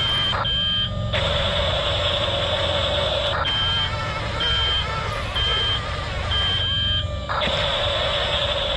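Double E E579 RC bulldozer's electronic sound effects: a steady simulated engine drone with reversing beeps about once a second, over a low rumble.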